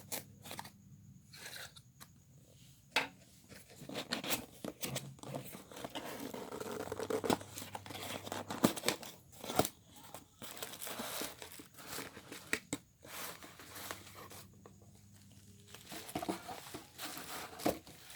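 Parcel packaging being torn open and handled: tearing and crinkling with many scattered sharp clicks, busiest through the middle.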